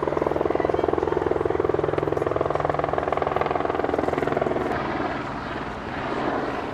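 AS355 twin-turbine helicopter running steadily: turbine hum with the fast, even chop of the main rotor. It eases off slightly about five seconds in.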